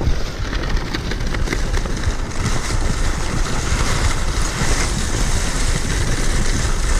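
Kicksled gliding along a snow trail: a steady hiss of runners over snow under a low rumble of wind buffeting the microphone.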